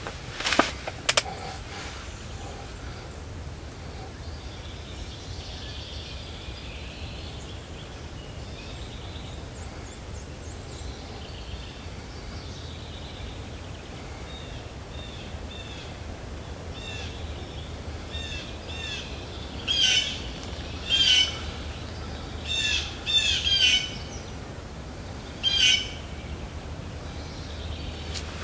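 Birds calling in woodland: two sharp sounds about half a second and a second in, then a run of short, high chirping notes, with several loud, sharp calls between about 20 and 26 seconds in.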